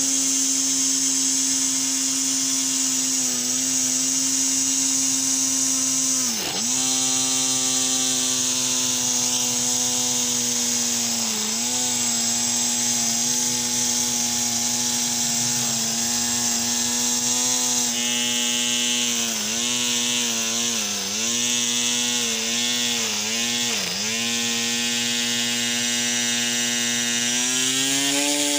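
Homemade mini grass cutter's 2200 kV drone brushless motor running at high speed with a steady whine. Its pitch sags briefly as the spinning cutter bites into grass: once sharply about six seconds in, then several times in quick succession past the middle.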